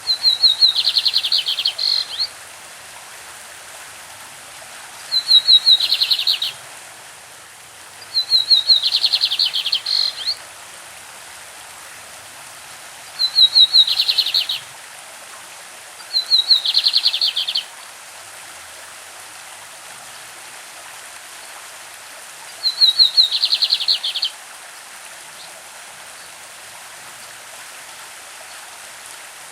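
Lined seedeater (bigodinho) singing its classic song: six short phrases a few seconds apart, each a quick run of high notes breaking into a fast buzzy trill. A stream runs steadily underneath.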